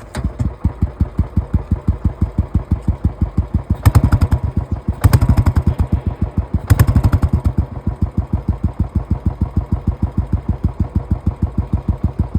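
A 2017 Royal Enfield Classic 350's 346 cc single-cylinder engine catches and settles into its thumping idle through the exhaust. The throttle is blipped three times, about four, five and seven seconds in, before it goes back to the steady idle thump.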